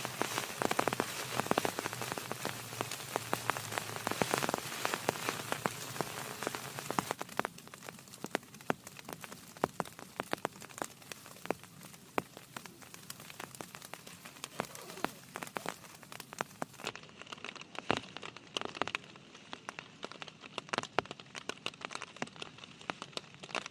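Heavy rain. Many separate drops tick on a surface over a steady hiss. It eases to a lighter fall of distinct drops about seven seconds in.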